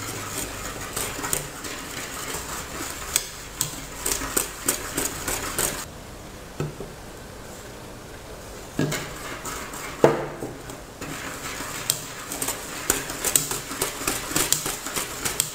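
A wire whisk beating a cocoa-and-milk mixture in a steel pot, its wires clattering rapidly against the sides and bottom of the pot. The clattering eases off briefly around the middle, then picks up again with one louder knock.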